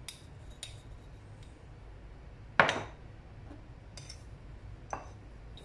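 Metal spoon clinking against a glass spice jar and a ceramic bowl as dried herbs are scooped out, with a few light clinks and one much louder knock about two and a half seconds in.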